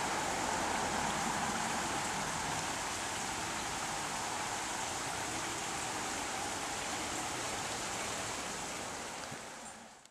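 Small rocky creek running over stones: a steady rush of water that fades out near the end.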